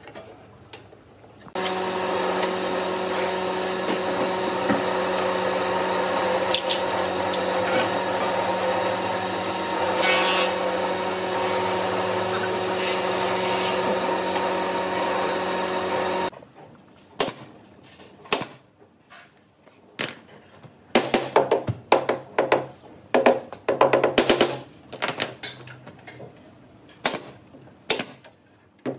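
An electric power tool's motor runs steadily for about fifteen seconds, switching on a second or so in and cutting off suddenly. It is followed by a series of short, irregular bursts of tool noise.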